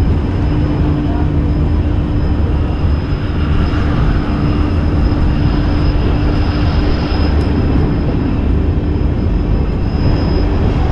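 Jan Shatabdi Express passenger coach running steadily, heard at its open doorway: a continuous rumble of wheels on the rails and rushing air, with a faint steady hum under it.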